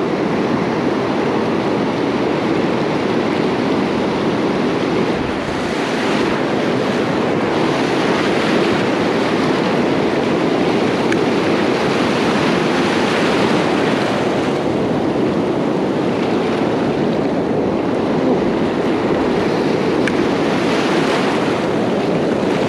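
Pacific surf breaking and washing up the beach close by: a steady rushing of water that swells louder as each wave comes in, several times over.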